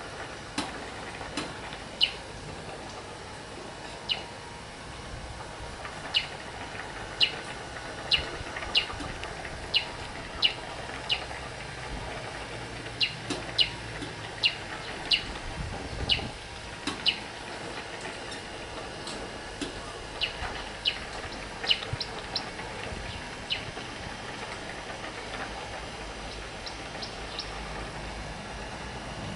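A bird giving many short, sharp, high chirps at irregular intervals, some spaced well apart and some close together, over steady background noise.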